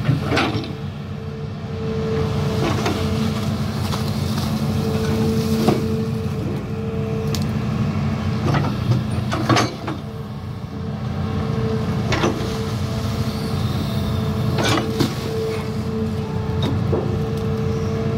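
Hitachi Zaxis 210F amphibious excavator's diesel engine running steadily under load while it digs, with a steady whine that swells and fades. Scattered sharp clanks come from the working bucket and boom.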